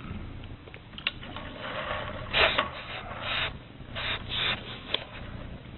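Rubbing and rustling noises in several short bursts, with a couple of sharp clicks.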